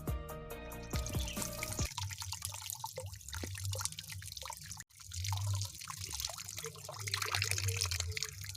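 Background music for about the first two seconds, then water trickling and splashing as freshly dug kencur (aromatic ginger) roots are washed, with a brief break about halfway.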